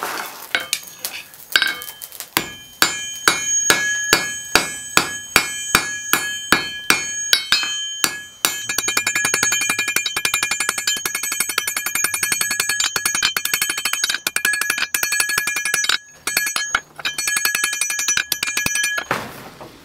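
Hand hammer forging a red-hot pattern-welded steel bar on an anvil, each blow ringing the anvil. The first blows are separate and strong, about two a second. Partway through they become a fast, almost continuous run of lighter strikes, which breaks off briefly twice near the end.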